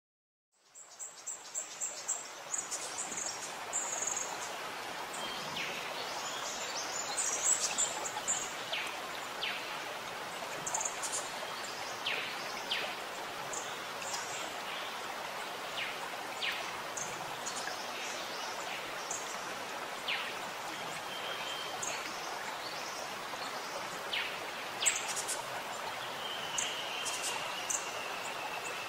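Steady rush of flowing water with many short bird chirps and calls over it, and a slightly longer bird note near the end. The sound fades in over the first second.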